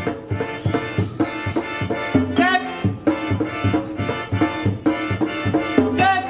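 Background music with a steady, quick drum beat and a melody over it.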